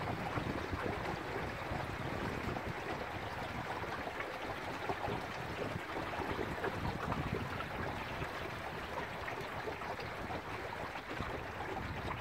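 Water rushing and rippling along the hull of a small wooden sailboat moving under sail, mixed with wind, a steady wash with no break.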